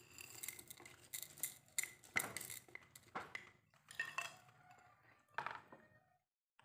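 Lumps of rock sugar tipped and pushed with chopsticks from a ceramic bowl into a glass jar of sliced limes: irregular clinks and knocks against the bowl and glass, stopping about six seconds in.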